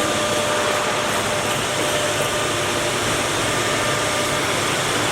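1530 CNC router running: a steady hiss of machine noise with a faint constant whine from the spindle.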